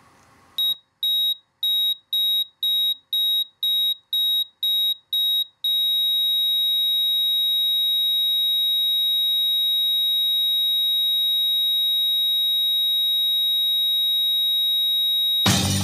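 High electronic beeping, about two beeps a second for some five seconds, then one long unbroken tone for about ten seconds, the pattern of a heart monitor flatlining. Music cuts in near the end.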